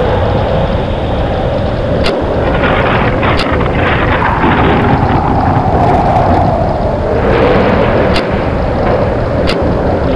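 Storm sound effect: a loud, continuous rumbling roar of wind with a howl that wavers in pitch, and four faint sharp clicks.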